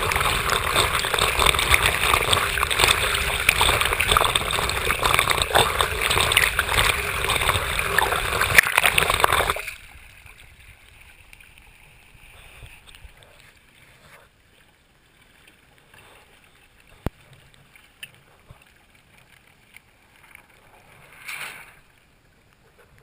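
Water rushing and splashing over a GoPro's waterproof housing held just at the waterline beside the hull of a Hobie Tandem Island sailing trimaran under way: a loud, dense wash of spray. About ten seconds in it cuts off suddenly to a much quieter stretch with a single sharp click and a brief swell of noise near the end.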